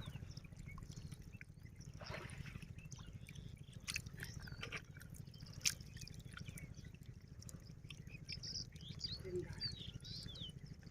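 Water splashing and dripping in short, scattered bursts, with a few sharp clicks over a steady low hum.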